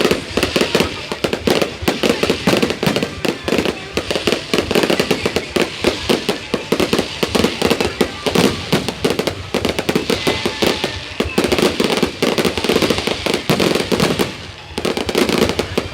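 Fireworks going off in a rapid, continuous barrage of bangs and crackles, with a brief lull about a second and a half before the end.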